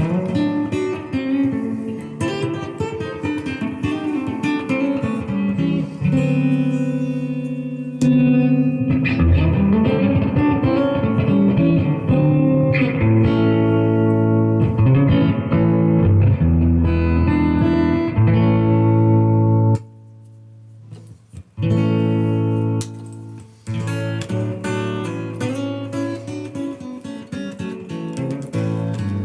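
Guitar played through a Multivox tape echo unit, with notes and chords ringing and overlapping, briefly stopping about twenty seconds in. The owner says the echo is not running over the heads as it should, probably because the tape is not the correct type, so only slapback repeats come through.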